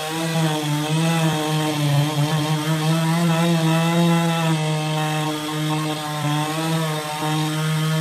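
Two-stroke chainsaw running at high revs with its bar buried in a large log, cutting steadily; the engine pitch wavers slightly as the load on the chain changes.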